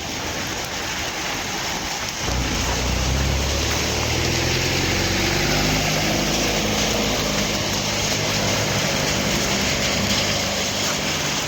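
Steady hiss of heavy rain and running water in a thunderstorm, with a deep low rumble setting in about two seconds in and slowly dying away.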